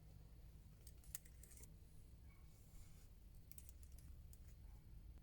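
Near silence with a low hum and a few faint, light clicks in two short clusters, about a second in and again past the three-second mark, like small objects being handled.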